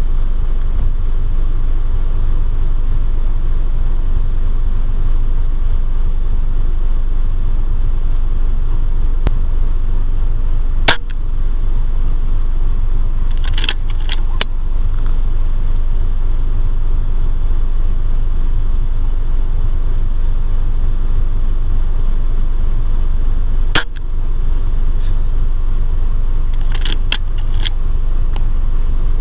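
Steady low rumble of a vehicle engine running throughout. Twice, about thirteen seconds apart, a single sharp crack of a Weihrauch HW100 air rifle shot, each followed a couple of seconds later by a short run of quick clicks.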